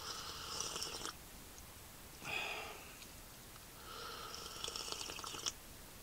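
Someone sipping hot coffee from a bamboo mug: two slurps, one at the start and one about four seconds later, with a short breathy sound between them.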